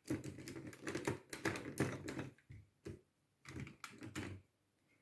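Hard plastic toy parts clicking and rattling as a shield is clipped into the hand of a Time Force Megazord figure: a busy run of small clicks for about two seconds, then another short cluster near the end.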